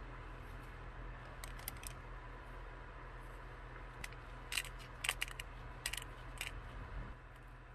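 Light clicks and rattles as dried spices and red pepper flakes are shaken into a plastic food processor bowl, in two short bursts, over a faint steady hum.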